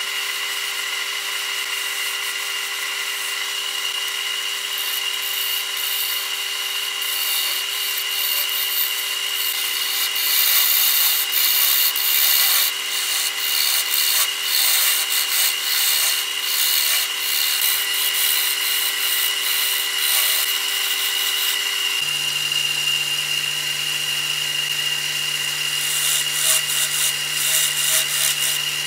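Wood lathe running with a steady motor whine while a hand-held turning tool cuts into the spinning wooden spindle, making scratchy, uneven cutting noise that comes and goes with each pass. The cutting is at its loudest about a third of the way in and again near the end, and a lower hum joins about three-quarters of the way through.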